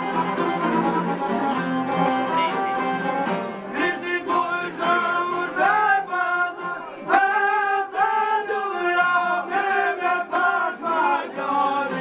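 Albanian folk ensemble: long-necked plucked lutes (çifteli and sharki) with accordion. About four seconds in, a man's voice comes in over them, singing long wavering notes.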